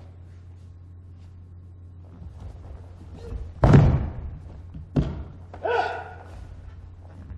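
A martial artist thrown down onto the training mat, landing with a heavy thud about halfway through, followed about a second later by a sharp slap and then a short shout. A low hum runs underneath.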